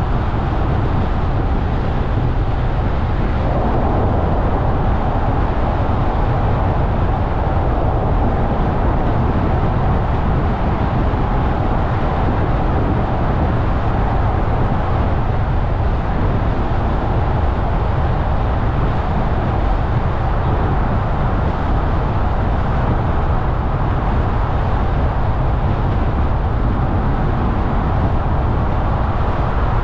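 Car driving along at steady speed: an even rumble of tyres and engine, strongest in the low end. The noise changes slightly in tone about three and a half seconds in.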